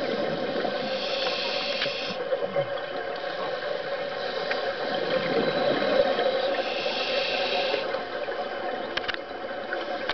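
Scuba diver breathing through a regulator underwater: two long hissing inhalations, about five seconds apart, over bubbling and a steady hum.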